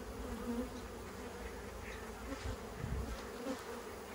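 Honeybees buzzing over an open hive, a steady hum that wavers slightly in pitch.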